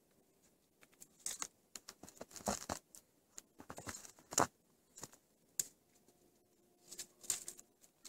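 A moose browsing on snow-covered shrubs: irregular snapping and crunching of twigs, loudest around the middle, with short quiet gaps between.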